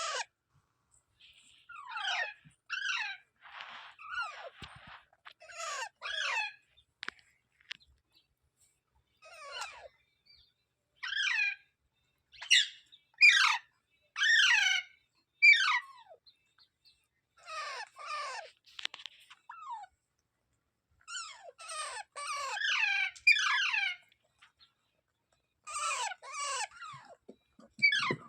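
A parrot calling in short, harsh screeches, each sliding down in pitch, given in quick runs of two to five with brief pauses between.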